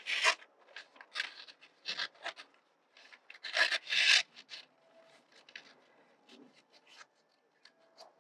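Scissors snipping lengthwise through a paper Möbius strip with a single twist, in a run of short, irregular cuts; the loudest come at the very start and just under halfway, then fainter, sparser snips.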